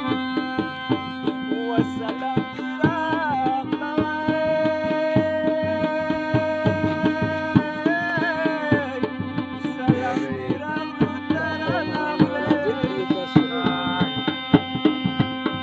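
Pashto folk music: a harmonium sounds a steady chord and melody over a dhol drum beaten by hand in a fast, busy rhythm.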